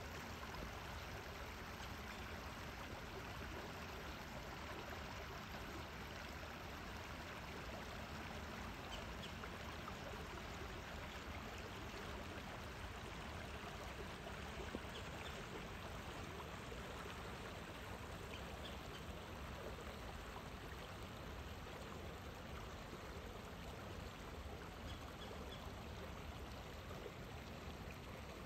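Small river flowing over rocks in a shallow riffle: a steady, even rush of running water.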